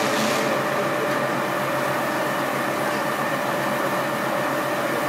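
Fire engine pump running at a constant speed, a steady hum under an even rushing hiss from the hose spraying water onto a smoking car.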